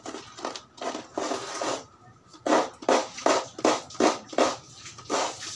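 Coconut half scraped against a hand coconut grater, shredding the white meat: rough scraping strokes. A few come irregularly at first, then after a short pause a steady run of about three strokes a second.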